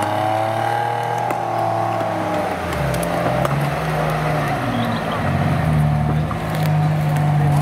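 Off-road 4x4's engine running and revving, its pitch rising and falling with the throttle. About three seconds in the note changes to a new, unsteady one that grows louder toward the end.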